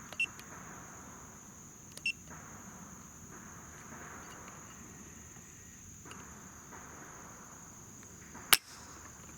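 The hammer of a Smith & Wesson M&P 15-22 with a JP Enterprises trigger falls once with a sharp metallic click about eight and a half seconds in: a dry fire on an empty chamber as the trigger breaks during a pull-weight measurement. Two faint clicks come before it, and a steady high-pitched tone runs underneath.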